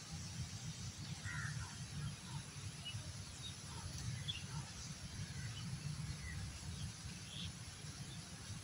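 Outdoor ambience: a steady low rumble with a faint hiss, and short faint chirps scattered throughout.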